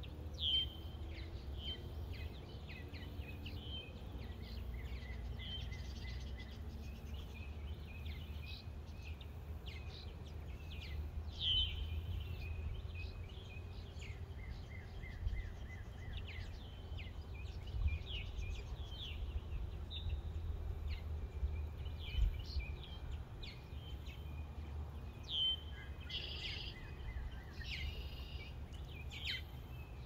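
Songbirds chirping and calling, many short calls scattered throughout with a few louder ones, over a low steady rumble.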